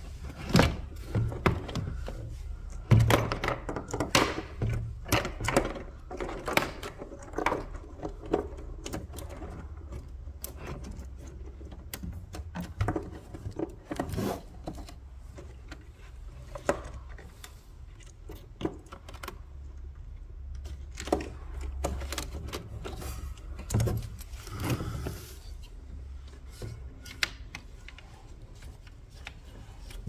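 Wiring harnesses, plastic connectors and the plastic housing of a Mercedes W204 front SAM control unit being handled and fed into place: irregular plastic clicks, knocks and rustling, busiest in the first ten seconds or so.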